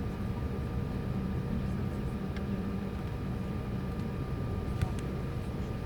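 Steady low mechanical drone of an airliner and its deicing equipment during deicing, with a few faint steady tones running through it and one sharp click a little before the end.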